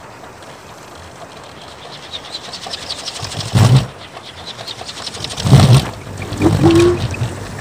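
A four-metre kolecer, a Sundanese wooden wind propeller on a tall pole, starts turning in the wind, its blades beating faster and faster. Loud low rumbling surges come about three and a half seconds in and again from five and a half seconds, with a short hum near the end: the thunder-like roar the big kolecer is built to make.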